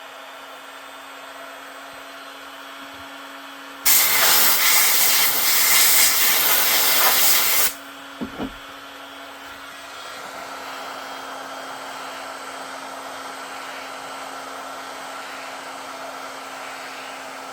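Heat gun blowing steadily as Kydex is heated for forming, with a much louder rush of air for about four seconds in the middle that cuts off abruptly, followed by two short knocks.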